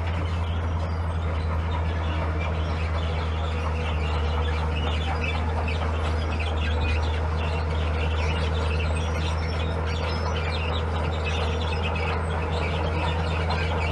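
Heavy diesel engine of earthmoving machinery running steadily at a constant speed, with birds chirping above it.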